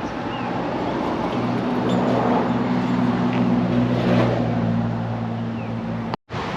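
Motor vehicle engine hum with road noise, swelling to a peak around the middle and then easing, broken off abruptly by a cut near the end.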